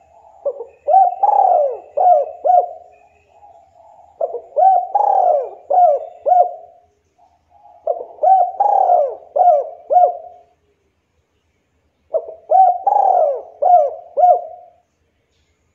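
Spotted dove (local Javanese derkuku) cooing: four phrases about four seconds apart. Each phrase is a run of about four coos that rise and fall in pitch.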